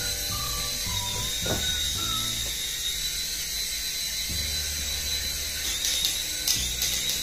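Small infrared-sensor toy helicopter in flight: its tiny electric rotor motors give a steady high-pitched whine. Near the end it knocks lightly against the wall a couple of times.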